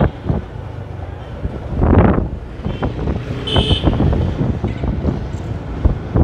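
Wind buffeting the microphone over vehicle and road noise from moving through traffic, in uneven gusts with knocks and bumps. A brief high-pitched tone sounds about three and a half seconds in.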